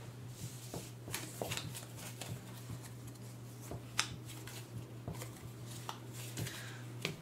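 Faint, scattered taps and clicks of game cards and cardboard pieces being handled on a table, one sharper tap about four seconds in, over a low steady hum.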